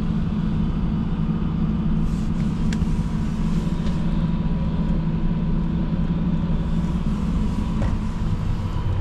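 John Deere 180G excavator's diesel engine running steadily, heard from inside the cab, with a faint steady high tone over the low rumble.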